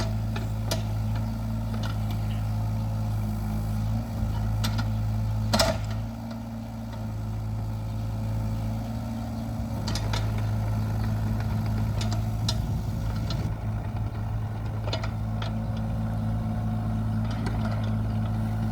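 Yanmar Vio 20 mini-excavator's diesel engine running steadily, with sharp clanks every few seconds; the loudest comes about five and a half seconds in.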